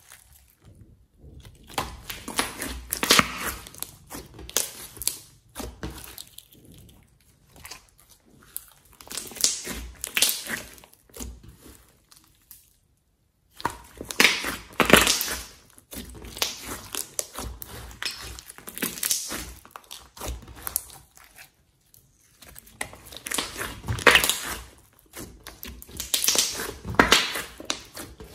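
Hands squeezing, folding and pressing a large glossy slime, giving wet squelches and crackling pops of trapped air in irregular bursts, with two short pauses.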